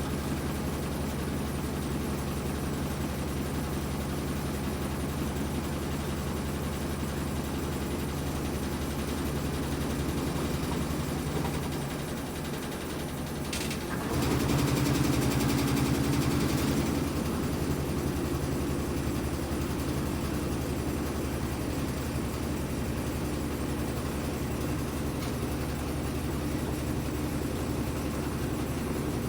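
Whirlpool top-loading washing machine running its drain and spin cycle, its motor humming steadily. About twelve seconds in the hum dips, then after a click it comes back louder with a higher hum and settles again.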